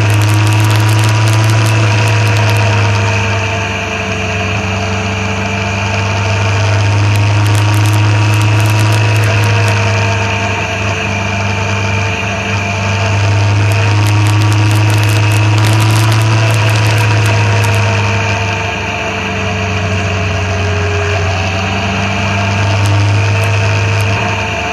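Motorcycle engine running at a steady cruise with rushing wind and road noise, its pitch drifting gently up and down as the speed changes.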